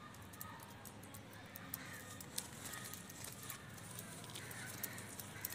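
Quiet background with soft handling sounds, a few light ticks and rustles, as a pigeon is held and turned in the hands.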